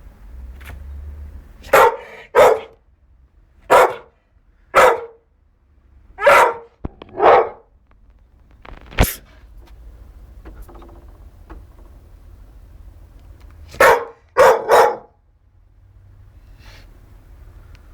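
Dog barking: about nine short, loud barks, several in quick pairs, with a long pause in the middle.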